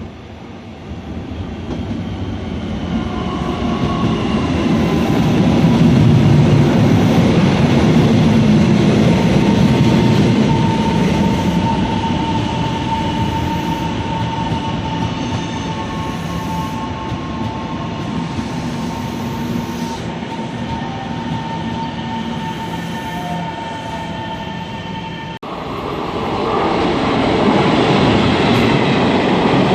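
A train running past on the rails: a steady rumble that builds over the first few seconds and then holds, with a thin high whine above it. About 25 seconds in it cuts off abruptly, and another loud train rumble follows.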